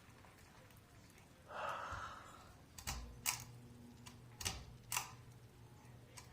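Ceiling fan pull-chain switch clicking as the chain is pulled three times, each pull giving a pair of sharp clicks; the chain is a little hard to pull. A low steady motor hum from the fan comes in after the first pull, and there is a short breathy rustle before it.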